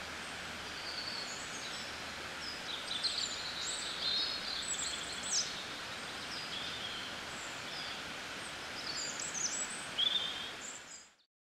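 Outdoor ambience of several small birds chirping and trilling over a steady background hiss, fading out near the end.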